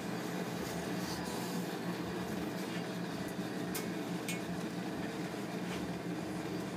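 Steady machine hum in a commercial kitchen, with a few faint light scrapes and ticks as a metal spatula works a crepe loose on a crepe griddle and the crepe is folded over.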